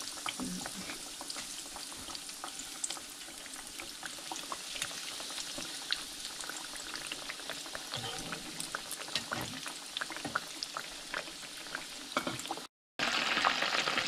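Breaded walleye fillets deep-frying in peanut oil in a skillet: a steady sizzle with many small crackles and pops. It cuts out for a moment near the end and comes back louder.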